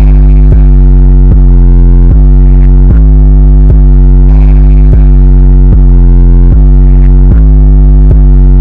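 Loud music with a deep bass line, its held notes changing about every 0.8 seconds.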